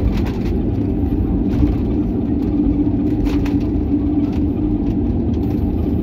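Cabin noise of a jet airliner rolling out on the runway after landing: a steady low rumble from the wheels and engines, with a steady hum that comes in about a second in and a few light rattles.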